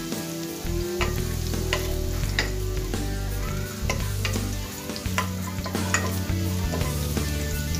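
Chopped garlic and onion sautéing in an aluminium pot, stirred with a wooden spatula: a steady sizzle with sharp knocks and scrapes of the spatula against the pot about every second.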